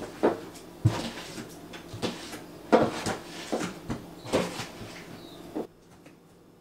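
Irregular knocks and clatter as a container and cloth bag are shaken and tapped out over a plastic colander in a stainless steel sink, emptying the last of the whitebait; about seven knocks, stopping abruptly near the end.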